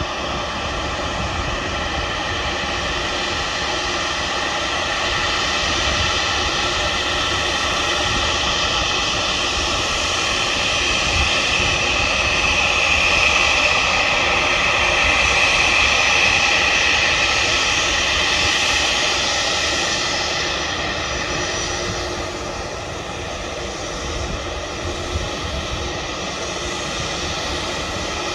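An airliner's engines running as the plane passes. It is a steady noise with a high whine, growing louder to a peak about halfway through and then fading away.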